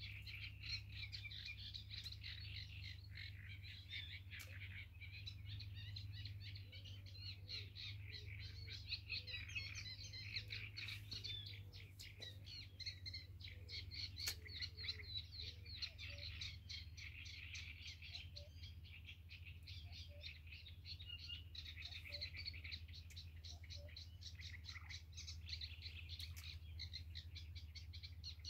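A dense, continuous chorus of bird chirps and rapid calls, over a steady low rumble.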